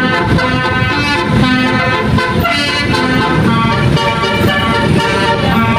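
Bus telolet horn, a set of electrically sequenced air trumpets, playing a song melody: a run of clear held notes that change pitch one after another.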